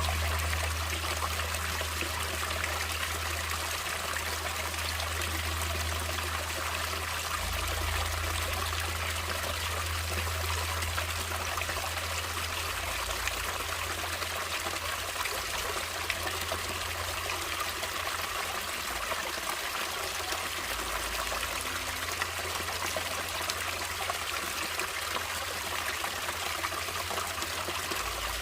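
Natural running water: a stream flowing steadily, a bright, even rush of water with a low rumble underneath.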